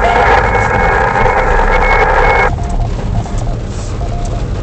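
Amateur radio transceiver hissing with band static through its speaker, a narrow steady hiss that cuts off abruptly about halfway through. After that, faint short beeps at one pitch repeat over the low rumble of the car.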